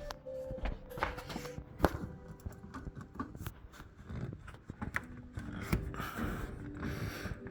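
Hand work on a kerosene heater's fuel fitting and hose: scattered metallic clicks and knocks, with a stretch of scraping and rubbing about six seconds in as the part is worked loose.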